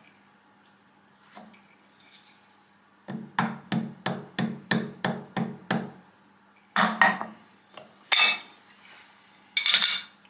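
A hand mallet rapping on a steel collet block and its spanner clamped in a milling-machine vise: about ten quick, even taps a little over three a second, then three louder, sharper metallic knocks spaced out toward the end.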